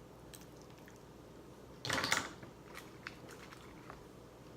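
Close-up eating of mussels: one loud bite about two seconds in, then faint scattered clicks of chewing.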